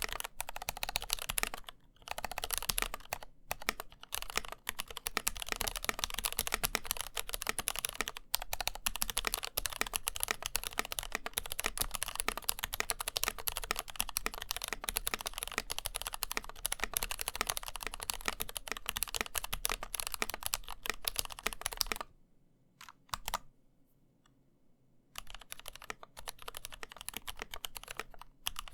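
Fast typing on a mechanical keyboard (NK65 Entry) with stock, factory-lubed Gateron CAP Milky Yellow linear switches and NovelKeys VaporWave keycaps: a dense, steady run of keystrokes. It stops about 22 seconds in, and after a pause of about three seconds with a couple of stray clicks, slower typing begins.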